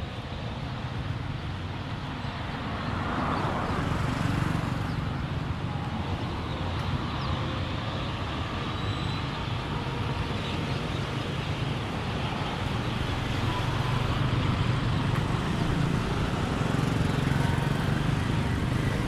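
Road traffic: cars, pickups and motor scooters driving past close by. The engine and tyre noise is steady and swells as vehicles pass, about three to five seconds in and again near the end.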